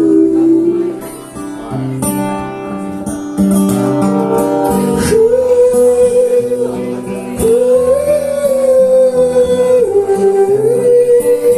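Live acoustic song: an acoustic guitar plays under a long, held melody line sung without words, stepping slowly between notes.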